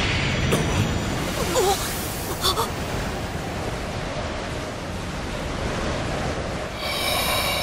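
Anime sound effect of a surging energy aura: a steady rushing, wind-like noise with a few short crackles in the first few seconds, and a high ringing shimmer that comes in near the end.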